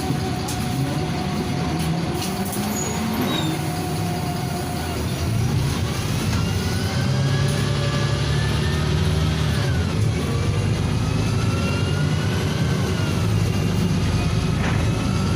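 Cabin sound of a NefAZ 5299 city bus under way: its Cummins ISBe diesel running with a steady low rumble, growing louder about five seconds in as the bus speeds up, with a drivetrain whine that rises and falls in pitch.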